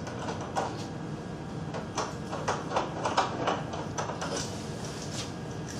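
A clamp being fitted and tightened onto a speed-skate sharpening jig on a table: a run of irregular clicks and clunks of metal and plastic being handled.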